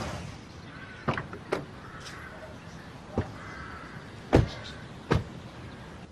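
Car doors being handled: a few light latch clicks, then two solid door thuds, the first, about four seconds in, the loudest.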